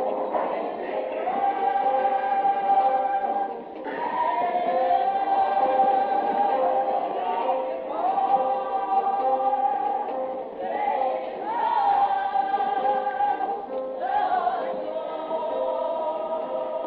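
Broadway show tune sung live by several voices together over the accompaniment, holding long notes in phrases of a few seconds. Muffled, narrow-band sound of a recording made from the audience.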